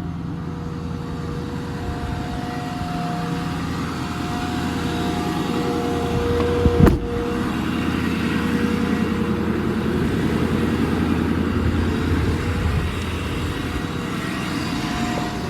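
The Ford 6.4 L Power Stroke V8 diesel in an F550 truck, running steadily with a few steady whining tones over a dense low rumble. It gets a little louder midway, and there is a sharp click about seven seconds in.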